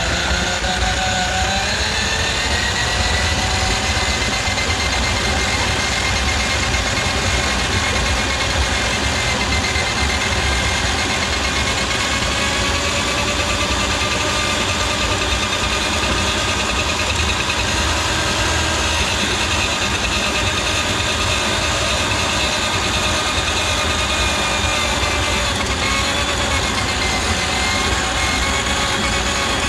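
Electric drain auger running steadily, its motor spinning the cable through a kitchen drain line clogged with grease; the pitch rises over the first couple of seconds, then holds.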